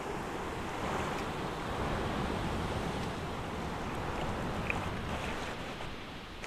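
Ocean surf washing through the shallows at the water's edge, a steady rushing of waves that swells about a second in and eases toward the end.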